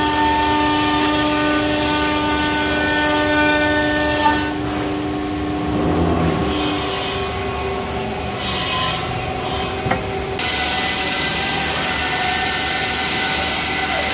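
Woodworking machinery running with a steady whine of several tones; about four seconds in the whine fades and gives way to rougher noise. There is a short knock near ten seconds, after which a steady hissing noise sets in.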